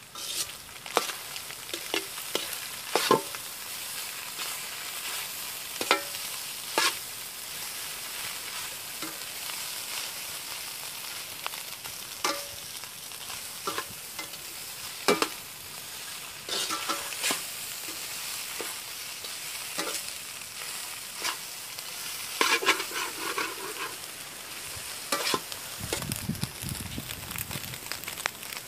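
Goat blood and herbs frying in a large metal pan: a steady sizzle, with a utensil scraping and knocking against the pan every second or two as it is stirred.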